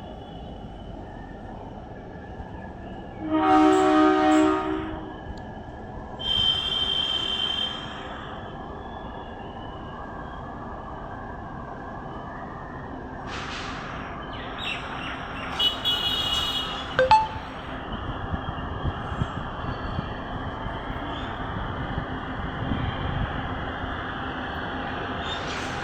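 Indian Railways DMU train horn: a loud blast about three seconds in, followed by a second, higher-pitched blast a few seconds later. Then the train's running noise builds, with hissing bursts and a sharp click in the middle.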